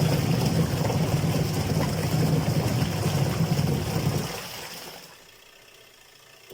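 Washing machine running with a loud, annoying steady drone from a faulty gearbox, a fault that also lets water drip onto the motor. The drone fades away about four seconds in.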